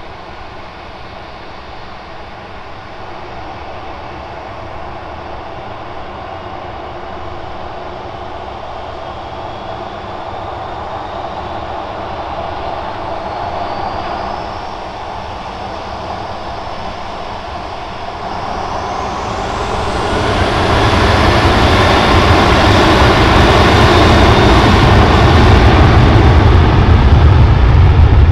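Ryanair Boeing 737's twin jet engines spooling up for the takeoff run: a steady engine noise with a whine that rises about halfway through, then a sharp build about twenty seconds in to a loud, steady roar at takeoff thrust.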